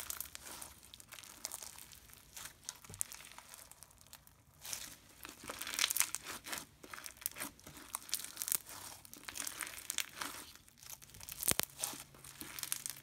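Crunchy, bead-filled clear glue slime being squeezed and worked by hand, giving irregular crackling crunches and small bubble pops.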